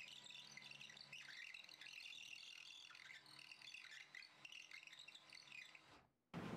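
Near silence: faint high chirping and warbling over a low steady hum, with no drill noise to be heard.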